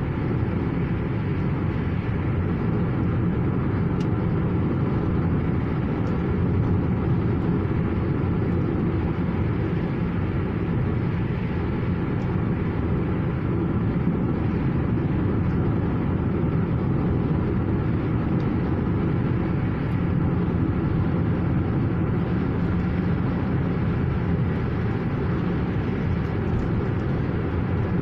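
Steady low rumble of road and engine noise inside the cabin of a car driving along a highway.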